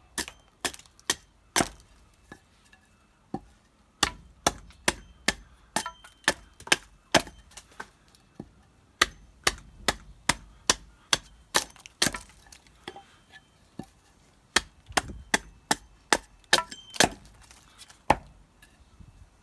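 Axe chopping the corners off a green ash billet to round it towards a cylinder: a run of sharp wooden chops, two or three a second, in bursts with short pauses between.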